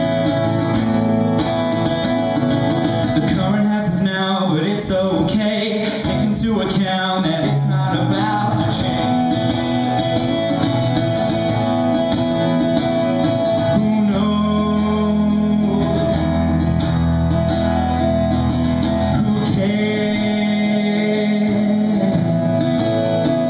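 Solo acoustic guitar played live, with a man singing over it in places.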